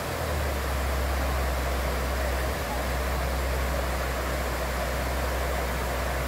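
Steady rushing of a waterfall and rocky forest stream, a continuous even roar of water.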